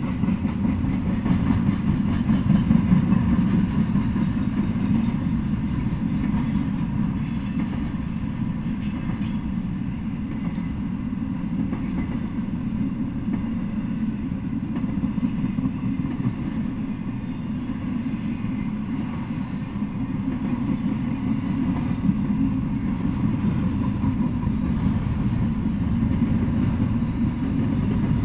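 Double-stack intermodal freight train rolling past at steady speed: the low, even noise of its well cars' wheels running on the rails.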